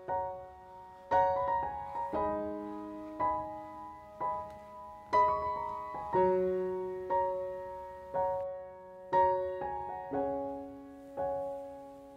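Soft background piano music, gentle chords struck about once a second, each one fading away.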